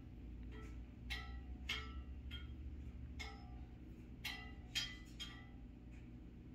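Faint chime-like ringing tones, about eight of them at uneven intervals, over a low steady hum.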